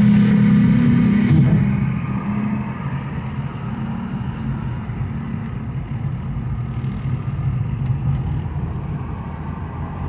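Steady drone of a car's engine and tyre noise heard from inside the cabin while driving, a little louder for the first second and a half and then settling lower.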